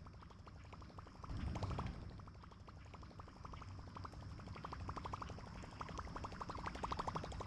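Baitcasting reel being cranked steadily to work a topwater prop bait: a fast run of light ticks, about fourteen a second, heavier from a couple of seconds in.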